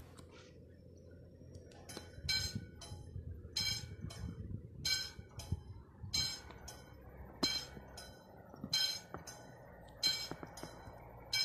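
Classic warning bell of a level crossing's AŽD 71 signal ringing, one clear ding about every 1.3 seconds. It starts about two seconds in. The bell warns that a train is approaching the activated crossing.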